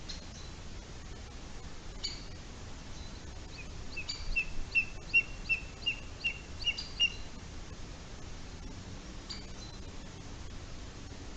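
A bird calling: a quick run of about ten short, high chirps lasting some three seconds, with a few single sharp notes before and after it.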